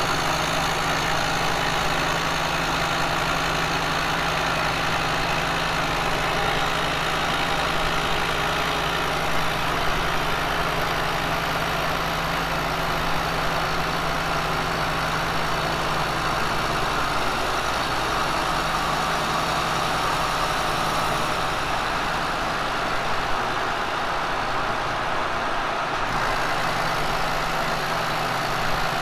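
Kearney & Trecker milling machine taking a steady face-milling pass with a carbide face mill across a cast iron machinist-square casting: an even cutting noise over a constant machine hum, a finishing cut on the square's second side.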